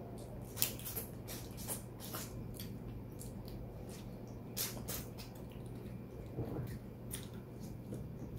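Eating with bare hands: scattered wet clicks, smacks and squishes of shrimp being peeled and chewed, over a faint low steady hum.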